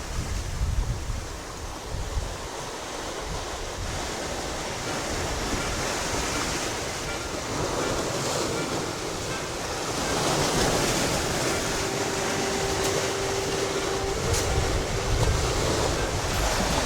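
Ocean surf washing steadily on the shore, with gusts of wind buffeting the microphone in the first couple of seconds. The surf grows somewhat louder in the second half.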